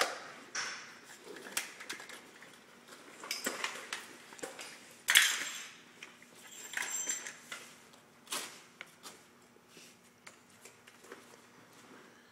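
Self-contained breathing apparatus being taken off: straps, buckles and the harness frame clink and rustle in short knocks, with a loud knock about five seconds in as the air cylinder and backpack frame are set down on the concrete floor. Near the end, the rustle of a turnout coat being taken off.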